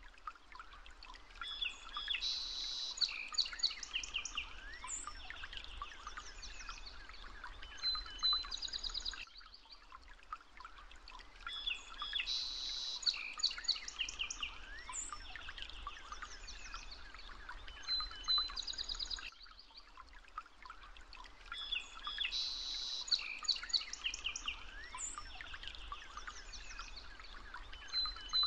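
Recorded birdsong: several birds chirping and trilling in quick high calls, the same stretch of about ten seconds repeating three times as a loop.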